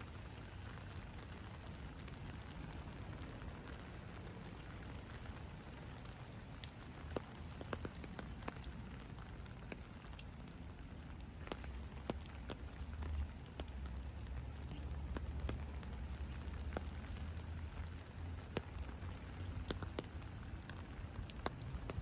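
Steady rain falling on pavement, with scattered sharp drip taps from about seven seconds in. A low rumble swells in the middle and fades again.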